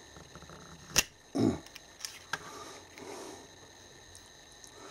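Small metal parts of a 0–1 inch micrometer being handled and fitted together: one sharp click about a second in, a dull thump just after it, then two lighter clicks, as the thimble-and-spindle assembly goes back into the frame.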